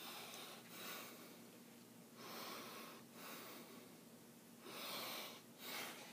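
Faint breathing close to the microphone: three pairs of soft, airy breaths, in and out, over a steady low electrical hum.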